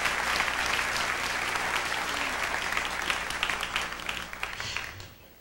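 Audience applauding, many hands clapping at once; the clapping thins out and dies away over the last second.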